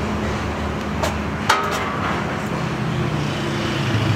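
Street traffic with a steady low engine hum and a single sharp clank about a second and a half in. A motorcycle engine grows louder near the end.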